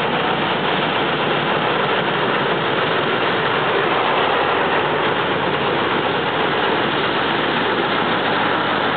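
Small diesel shunting locomotive's engine running steadily, under an even rushing noise.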